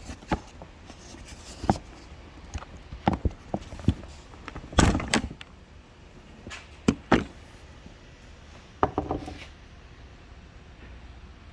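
Scattered plastic clicks and knocks from a Ram truck's inner door handle and its clips being pried out with a flathead screwdriver. The loudest knock comes about five seconds in.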